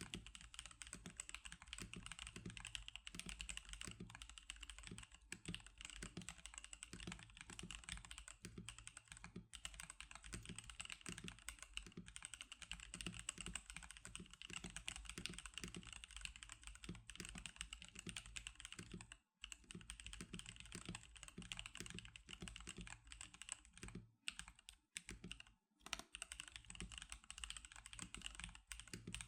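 Fast, continuous typing on a NovelKeys NK87 mechanical keyboard fitted with Magic Girl keycaps: a dense run of key clacks. Typing stops briefly twice, about two-thirds of the way through and again near the end.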